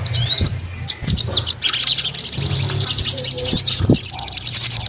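A sogon songbird singing vigorously: fast, high-pitched chattering trills and sharp chirps, with a brief pause about half a second in.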